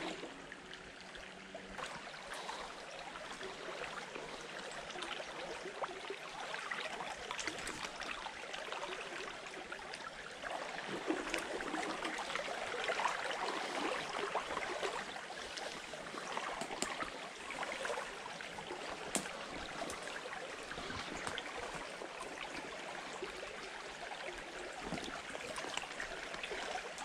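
Shallow stream babbling over a riffle, a steady rush of flowing water.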